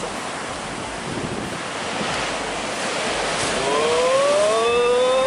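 Sea surf breaking and washing over rocks, swelling louder in the second half. Over it, from about three and a half seconds in, a long drawn-out pitched sound slowly rises in pitch.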